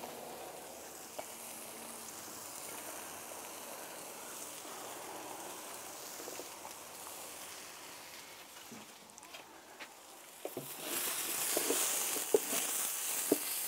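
Diced squash, onion and green chiles sizzling on a hot clay comal as the chiles are blistered. About ten seconds in the sizzle grows louder, with short knocks and scrapes of a wooden spatula stirring them.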